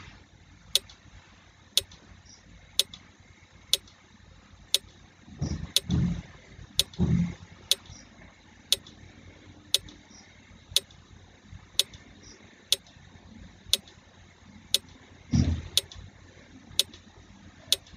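Quiz countdown timer ticking steadily once a second. A few brief, louder low-pitched sounds come about six seconds in and again near the end.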